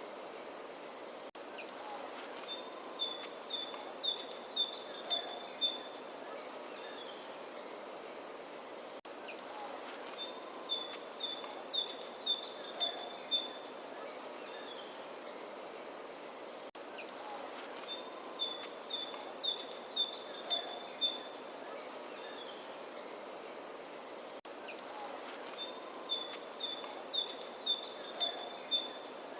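Songbird singing the same phrase over and over, about every eight seconds: a few high, falling notes, then a quick run of short repeated chirps. Faint steady outdoor hiss underneath.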